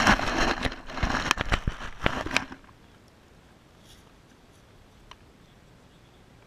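Close-up handling noise of a camera being set down in grass: rustling and scraping with several sharp knocks against the microphone, stopping about two and a half seconds in. After that only faint outdoor background, with one soft click near the end.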